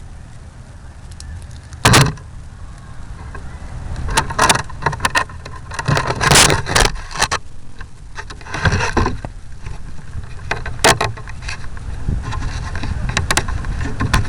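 Buffeting rumble on an RC model plane's onboard camera microphone, broken by loud sharp knocks and rattles about two seconds in and again in a cluster through the middle.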